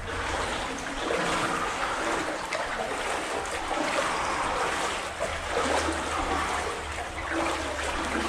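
Water sloshing and splashing as legs wade through knee-deep water in a flooded tunnel, in an uneven continuous wash.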